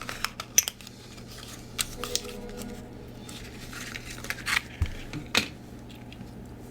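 Scattered light clicks and taps of a plastic Deco Rush tape dispenser being handled and turned over on a desk, about half a dozen spread out irregularly.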